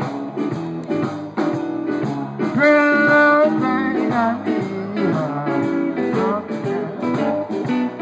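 Live blues band playing an instrumental passage between sung lines. An electric guitar plays a lead fill, with a long held note about a third of the way in and bent notes after it, over electric keyboard accompaniment.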